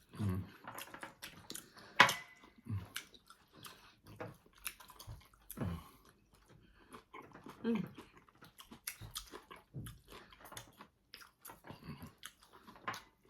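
Close-miked chewing and mouth sounds of people eating: irregular wet smacks and small clicks, with one sharp click about two seconds in and a brief voiced murmur about eight seconds in.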